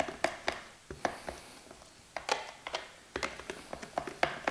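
A whisk clicks and taps against the side of a plastic mixing bowl as thin, runny batter is stirred. The clicks come irregularly, several a second, and ease off briefly in the middle.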